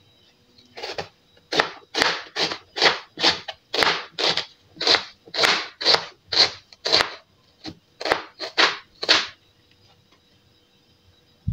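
Kitchen knife slicing through an onion on a plastic cutting board: a steady run of about seventeen crisp, crunchy cuts, roughly two a second, that stops a couple of seconds before the end.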